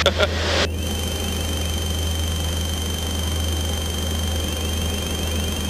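Light aircraft engine droning steadily in flight, a constant low hum as heard through the cockpit headset intercom, with a thin steady high whine above it.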